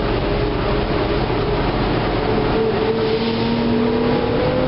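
Interior ride noise of a NABI LFW transit bus under way: a steady rumble and road noise with a drivetrain whine. The whine rises slightly in pitch from about halfway as the bus gathers speed.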